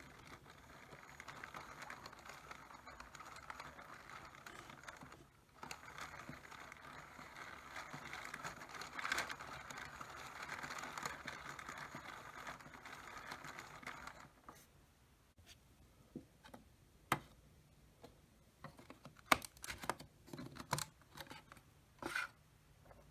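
Plastic Lego locomotive wheels and side rods turning on a bed of Lego tread links as a hand pushes the engine along: a steady plastic rattle with a short break about five seconds in, stopping about fourteen seconds in. Then scattered sharp clicks of Lego pieces being handled.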